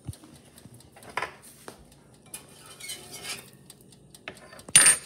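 Metal utensils and a toaster-oven rack clinking against a ceramic plate as a small pizza is lifted out of the oven. There are light scrapes and clicks, then one loud clatter just before the end.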